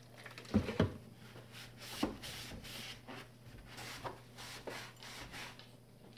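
A couple of sharp knocks as a plastic bottle is handled and set down on the counter, then a stretch of rubbing as a cloth wipes the underside of a wooden cabinet, cleaning it with alcohol. A faint steady hum runs underneath.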